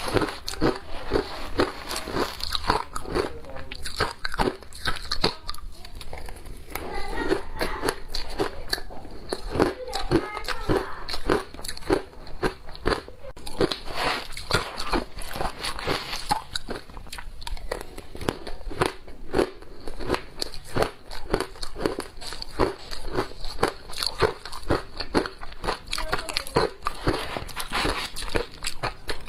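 Ice being bitten and chewed close to the microphone: a long, uneven run of crisp crunches, several a second.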